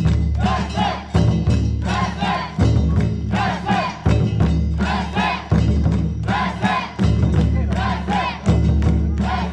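Festival float crew chanting together in rhythm, a short shouted phrase repeating about every second and a half, each phrase opening with a heavy low beat.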